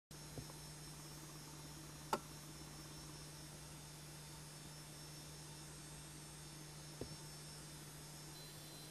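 Faint steady low hum over a light hiss. A single sharp click about two seconds in, with weaker knocks near the start and around seven seconds.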